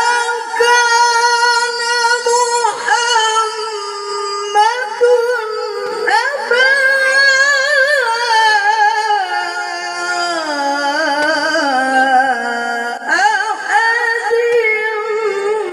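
A male qari reciting the Quran in a high, melismatic voice through a microphone, holding long wavering, ornamented notes. The pitch sinks lower around ten seconds in, then leaps back up high about thirteen seconds in.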